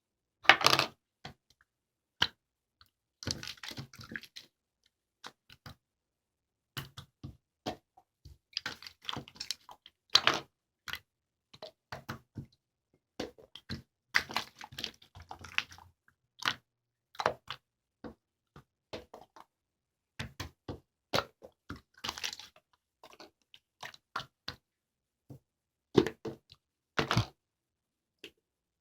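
Slime being handled by hand: irregular crackles, clicks and squishes, with short quiet gaps between them and denser crackly stretches now and then.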